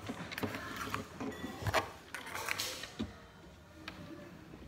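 Several light knocks and clatters of plastic toy cups being handled and set down on a wooden tabletop, the loudest knock a little under two seconds in.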